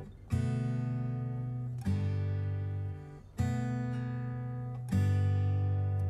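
Background music: acoustic guitar strumming full chords, four strums about a second and a half apart, each left to ring and fade.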